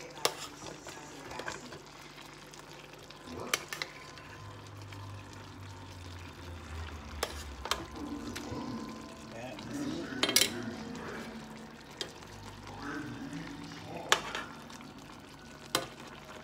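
Chicken wings frying in a thick, sticky soy-sugar-vinegar sauce in a cast-iron skillet, a steady sizzle, while a metal spoon stirs and turns them. The spoon clinks sharply against the pan about eight times, scattered through the sound.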